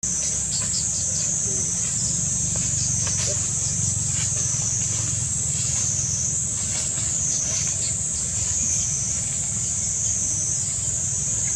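Outdoor ambience of insects buzzing in the trees: a steady high-pitched drone that swells and fades about every two seconds, over a steady low rumble.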